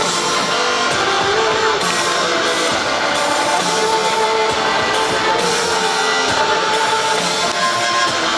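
Music from a night-time fountain and light show's soundtrack, played loud and steady over the show's sound system.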